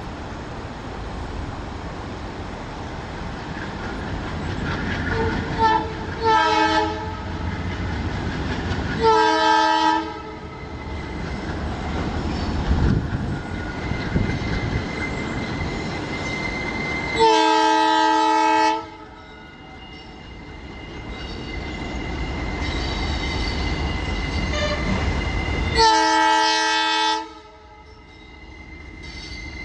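ALCO WDG-3A diesel locomotive sounding its horn repeatedly as it approaches: a quick double toot, then single blasts, the longest in the middle. Its engine rumbles underneath, and a thin steady wheel squeal comes in from the curve partway through.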